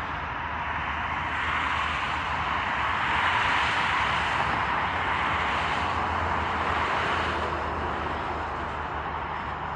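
Steady vehicle noise: a rushing hiss with a low drone under it, swelling a little about three seconds in and easing toward the end.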